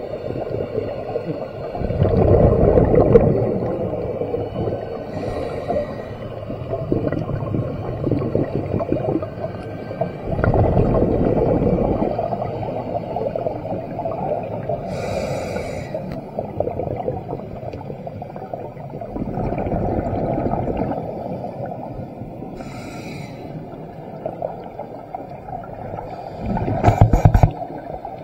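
Scuba diver breathing through a regulator underwater: a short hiss on each inhalation, then a longer rumble of exhaled bubbles, the breaths coming slowly, roughly every eight to nine seconds.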